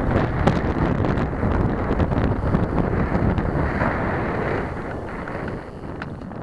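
Wind buffeting the microphone of a bicycle-mounted camera, with tyre rumble and rattles from riding a gravel towpath. It grows quieter from about two-thirds of the way in as the bike slows to a stop.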